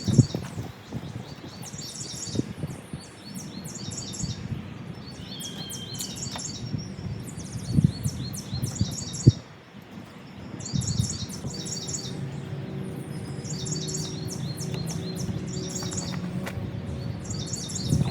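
A bird sings repeated phrases of rapid high chirps over a low, steady rubbing. The rubbing is a yucca hand-drill spindle being spun in a wooden fireboard. A few sharp knocks stand out, the loudest about eight and nine seconds in, and the rubbing briefly stops just before ten seconds.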